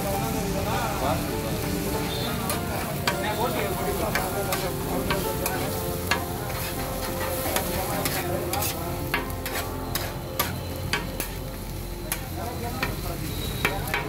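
Egg kothu parotta sizzling on a flat iron griddle while metal spatula blades scrape, toss and chop it, with frequent irregular sharp clinks of steel on the iron from a few seconds in.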